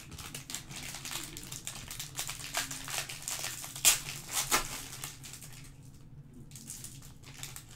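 Foil wrapper of a trading-card pack crinkling as it is torn open by hand, with the sharpest rips about halfway through. The crinkling dies down afterwards, with a little more near the end.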